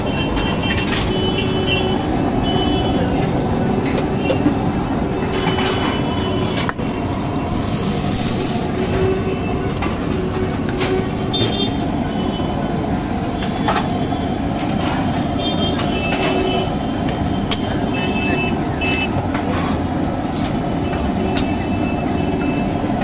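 Steady loud din of a busy roadside food stall and street, with scattered sharp clinks of steel plates, ladles and spatulas on the iron dosa griddle and short high tones now and then.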